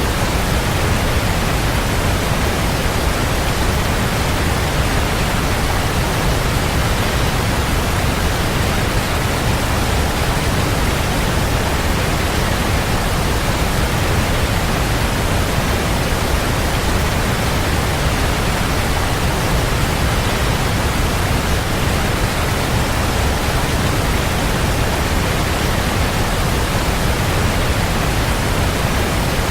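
Waterfall: a steady, even rush of falling water, heaviest in the low rumble, with no changes.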